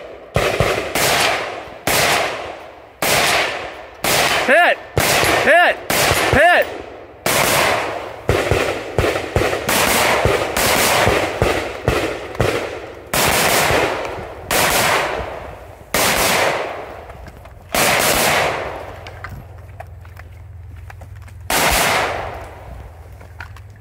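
A string of about twenty gunshots from a semi-automatic shotgun fired rapidly at steel targets, close together at first and then more spaced out, with a long pause before one last shot near the end. A few of the hits are followed by a short ringing clang of steel.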